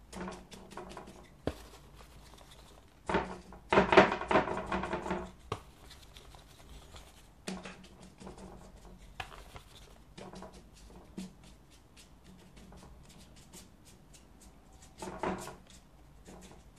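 A wide flat watercolour brush dabbing and scrubbing on paper in short scratchy strokes, with a dense flurry of strokes about three to five seconds in and another shorter flurry near the end.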